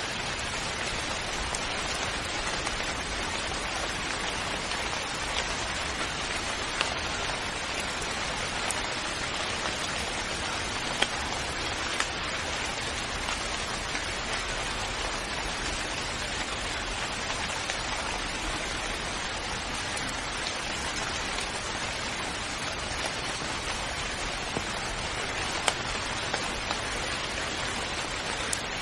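Steady rain falling on a surface, an even hiss with a few sharper drop ticks about eleven, twelve and twenty-six seconds in.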